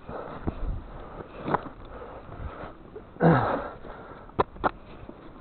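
A climber breathing hard and sniffing, the loudest breath about three seconds in, with two sharp knocks shortly after.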